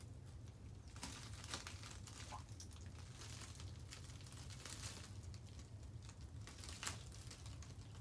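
Faint rustling with a few light clicks over a steady low rumble; the sharpest click comes about seven seconds in.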